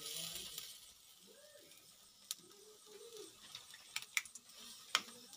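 Birds grilling over charcoal embers on a wire grill: a brief hiss of sizzling at the start, then scattered sharp pops and clicks. Two faint wavering calls sound in the background.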